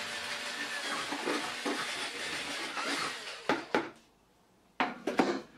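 Cordless drill with a paddle mixer whirring as it churns damp groundbait in a plastic bucket to aerate it, stopping about three seconds in. A few sharp knocks and clatters follow near the end.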